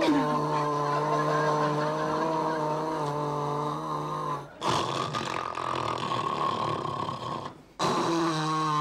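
A man snoring loudly in long, drawn-out snores with a steady pitch. The sound breaks off briefly about four and a half seconds in and again near the end, then resumes.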